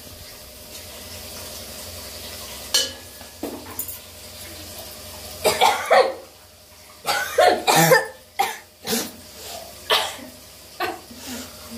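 Coughing in repeated short fits, the loudest bunched together midway, set off by the smoke of chillies frying in hot oil.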